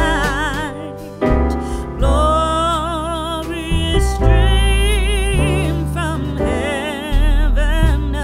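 Background music: a singer with wide vibrato over deep, sustained bass notes and piano.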